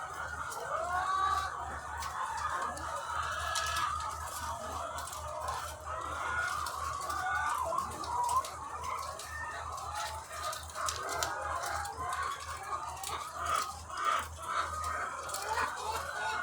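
A large flock of egg-laying hens clucking and calling over one another in a dense, continuous chorus, with scattered sharp clicks and a steady low hum underneath.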